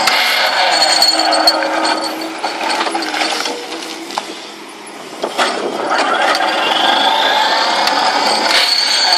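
A 15-ton-class excavator working a hydraulic vibro impact ripper attachment: loud, continuous mechanical noise with scattered knocks. It fades about three to five seconds in, then builds back up with a rising whine.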